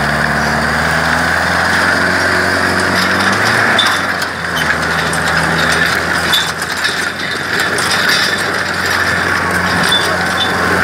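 Sonalika tractor's diesel engine running hard under heavy load while pulling a disc harrow through dry soil, with the harrow's metal frame and discs rattling and grinding.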